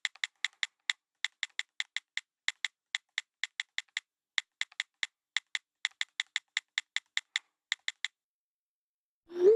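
Smartphone on-screen keyboard typing: crisp key-tap clicks, about five a second with brief pauses, stopping about eight seconds in. Near the end a short, louder rising tone begins: the phone's message-send notification.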